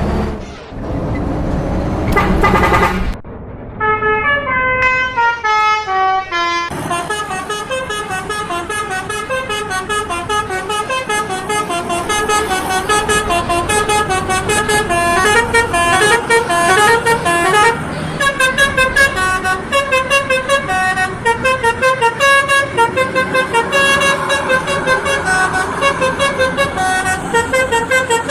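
A tour bus's telolet basuri horn, a multi-tone musical air horn, playing a long, fast run of notes that step up and down in pitch like a tune. It starts about four seconds in, after a loud rumbling noise.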